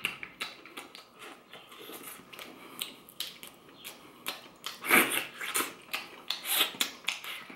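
Close-miked eating sounds: wet chewing and lip smacks, with a run of small clicks as mussel shells are handled and pulled apart by hand. The loudest wet smacks come about five and six and a half seconds in.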